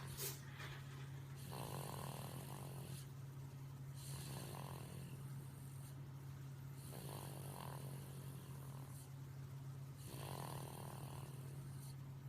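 A sleeping baby snoring, one soft snore with each breath, about every three seconds, four times in all. A steady low hum runs underneath, and there is a short click near the start.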